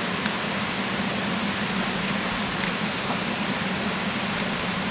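Stream water rushing steadily, with a few faint ticks.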